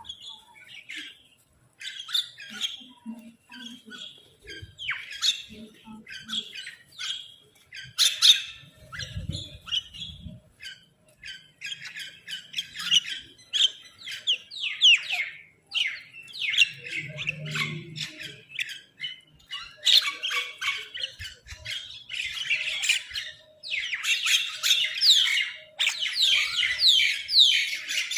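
Crows and mynahs calling over one another: a constant stream of harsh short squawks and chatter, with many quick falling calls, growing busier from about two-thirds of the way in.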